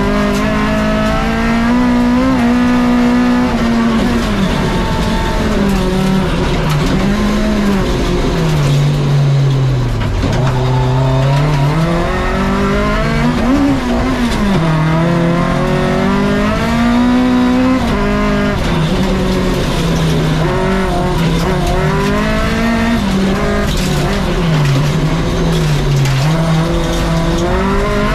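Rally car engine being driven hard: the engine note climbs and drops repeatedly through the gears, with its deepest dip about ten seconds in.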